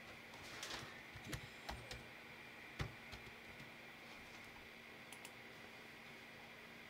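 A few faint, separate keystrokes on a computer keyboard, as text is typed into a search box. They are scattered over the first three seconds, the sharpest about three seconds in, and two more quick taps follow about five seconds in.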